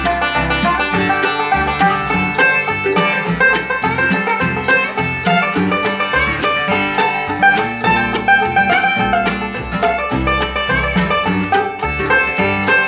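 Acoustic bluegrass band playing an instrumental break: five-string banjo and mandolin picking over acoustic guitar and upright bass, with no singing.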